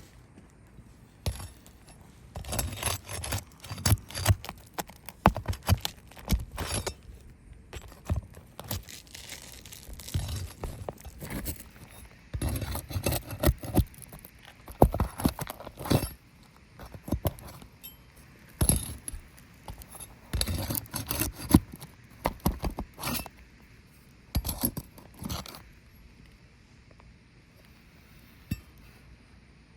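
Small hard objects being handled by hand: irregular clinks, knocks and scrapes in clusters, thinning out near the end.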